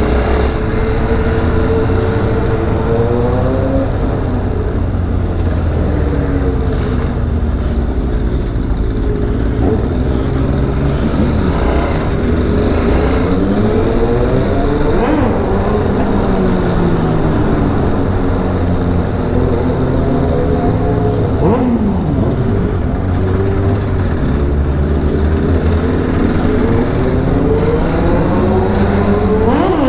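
Motorcycle engine heard from the rider's seat, its revs rising and falling again and again through the gears, with wind rumbling on the microphone; a quick sharp rise in revs near the end.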